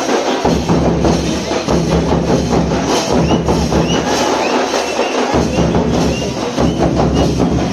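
Dhamsa and madal drums played together in a fast, dense rhythm, the deep dhamsa bass dropping out briefly twice.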